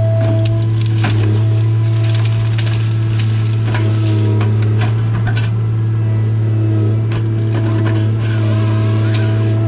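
Tigercat 855C harvester's diesel engine running steadily, heard from inside the cab, with a steady hydraulic whine over it. Brush and saplings crackle and snap in quick, irregular cracks as the LogMax 7000 head is swung through them.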